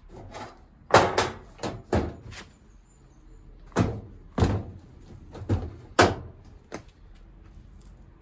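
A tumble dryer's side panel knocking against the cabinet as it is handled and pressed into place: about ten sharp knocks in two bursts, each ringing briefly.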